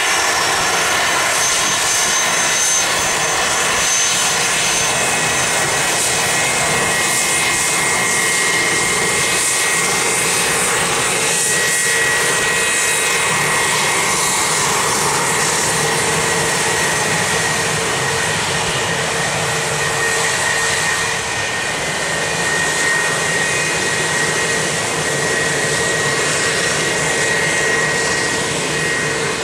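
Bombardier Challenger 350 business jet taxiing, its two Honeywell HTF7350 turbofans running with a steady, loud whine over a broad rushing noise.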